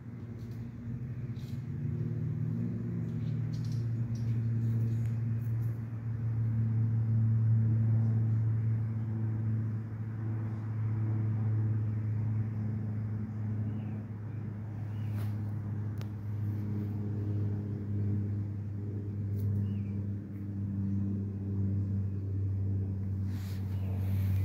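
A steady low engine hum that swells and eases slowly in loudness.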